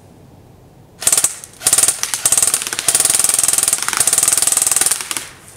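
Classic Army M4 pistol airsoft electric gun (AEG) firing full auto on an 11.1 V LiPo: a short burst about a second in, then a long burst of about three and a half seconds.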